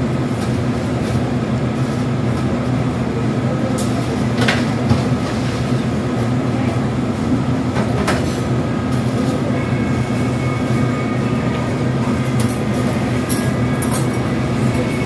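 Steady low mechanical hum of restaurant kitchen machinery, with a sharp click about four seconds in and another about eight seconds in. A faint high steady tone joins about two-thirds of the way through.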